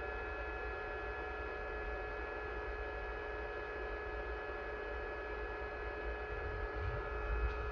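Epson L1800 DTF printer running a print-head cleaning cycle: a steady hum with a few held tones, with no change in it.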